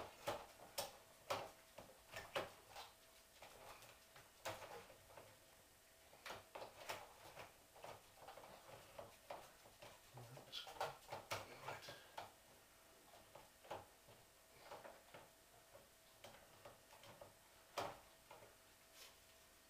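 Scattered clicks and light knocks of LED replacement tubes being fitted and swivelled into the lampholders of a fluorescent light fitting, with one sharper click near the end.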